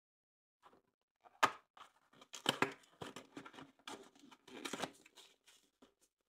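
Foil wrapper of a Kinder Surprise egg being torn and crinkled open by hand: a run of short, irregular crackling rustles that starts just under a second in.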